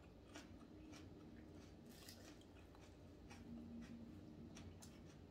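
Faint chewing and small wet mouth clicks of someone eating fried tilapia and rice by hand, irregular ticks over a low steady room hum.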